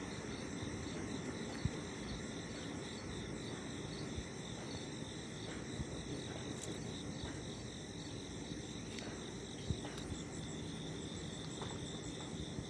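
Steady high-pitched chirping of insects, with a few faint clicks now and then.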